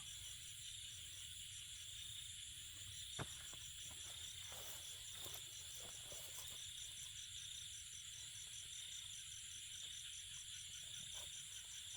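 Chorus of crickets and other insects: a steady high trill with a rapid, evenly pulsing chirp over it. A single sharp click about three seconds in, and faint rustles soon after.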